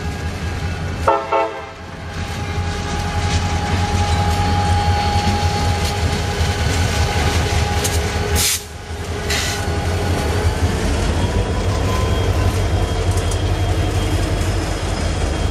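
CSX diesel freight locomotives passing close by, their engines and wheels rumbling steadily and getting louder as the units come alongside. A short horn blast sounds about a second in, and a few metallic clanks come near the middle.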